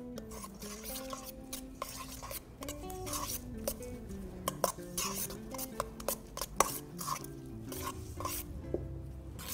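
Metal spoon stirring a wet, crumbly mixture in a stainless steel bowl, scraping and clinking against the sides in quick irregular strokes, with soft background guitar music.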